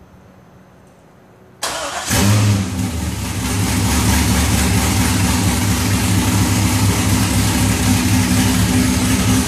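Corvette V8 engine cranking briefly and firing up about a second and a half in. It flares loudly as it catches, then settles into a steady, loud idle.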